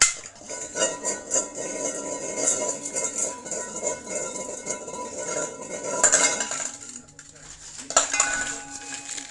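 Pressure cooker clattering and rattling, with metallic ringing and hiss, and sharp knocks at the start, about six seconds in and about eight seconds in.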